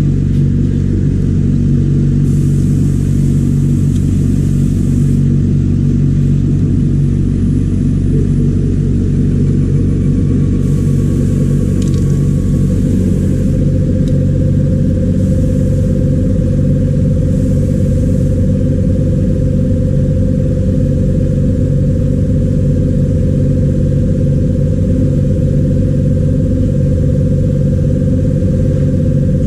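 Electric rotary vacuum pump running steadily, a loud even hum with several low pitches. About halfway through, a higher steady tone settles in and holds. A few short bursts of high hiss come in the first half.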